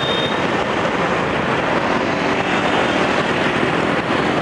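Riding a motorbike through city traffic: the steady run of the engine mixed with wind and road noise.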